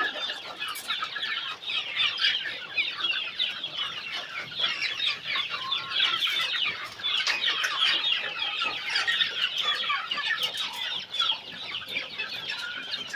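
A flock of young chickens, about two and a half months old, calling and clucking all at once, a dense, continuous chatter of many short overlapping calls.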